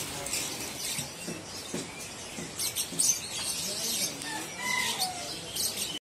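Many caged songbirds chirping and whistling at once: a dense run of short high calls with a few whistled glides, over faint background voices.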